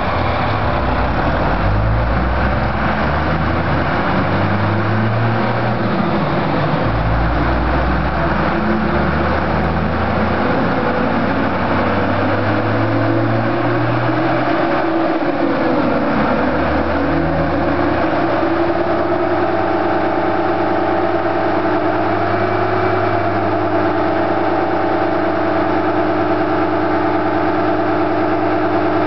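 Dodge Ram's Cummins inline-six diesel running on a chassis dyno. For the first half the engine note shifts under load with a lot of roar. About halfway through it winds down and settles into a steady idle.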